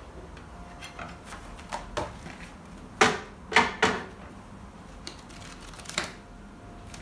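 A desktop wire-binding machine and a freshly wire-bound notebook being handled. There are a few light clicks and taps, then three sharp clacks in quick succession about three seconds in, and one more near the end.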